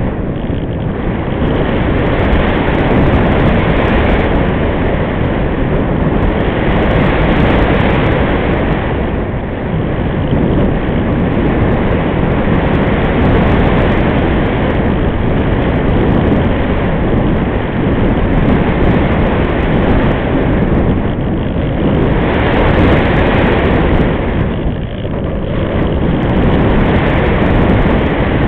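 Wind rushing over the onboard camera's microphone on a Multiplex Easy Glider in flight: a loud, steady rushing with no engine or motor pitch in it, swelling and easing every few seconds as the glider banks and changes speed.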